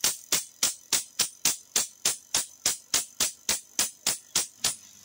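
Spark-plug igniter of a homemade liquid rocket engine snapping in a steady rhythm, about three and a half sparks a second, as the pre-ignition system fires; the snapping stops near the end.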